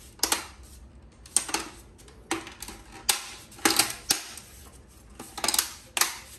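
Plastic snap clips of a Huawei B612 router's front cover clicking into place as the cover is pressed onto the housing. About a dozen sharp clicks, some alone and some in quick clusters of two or three.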